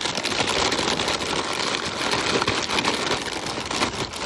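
Plastic bags of frozen food rustling and crinkling as they are handled, a continuous dense crackle.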